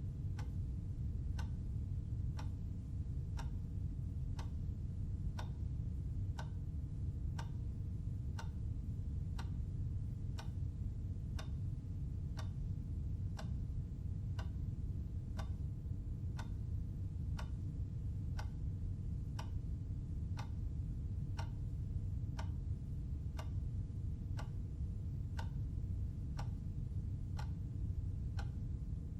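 Clock ticking steadily, about two ticks a second, over a low steady rumble.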